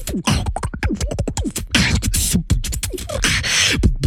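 Human beatboxing: a fast vocal-percussion pattern of kick-drum thumps and quick hi-hat ticks, with longer hissing 'sh' sounds about two seconds in and again near the end, and a few falling pitched bass sweeps.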